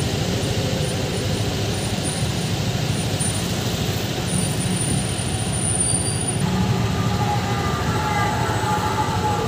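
Street traffic noise: vehicle engines running at a busy city intersection, a steady rumble with a faint whine in the second half.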